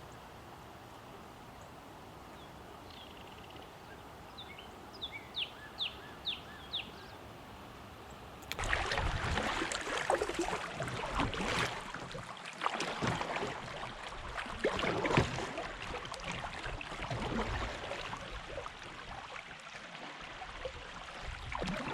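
A few seconds of faint river background with a bird giving a short run of quick downward chirps, then a sudden switch to louder splashing and sloshing water around a kayak, with scattered knocks and clatter.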